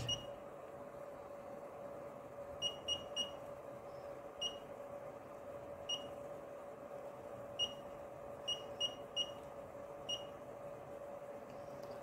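Short, high electronic beeps from a FeelTech FY6900 function generator, each one confirming a key press or a step of its rotary knob as the channel 1 frequency is adjusted. There are about eleven of them, some single and some in quick runs of two or three, over a faint steady hum.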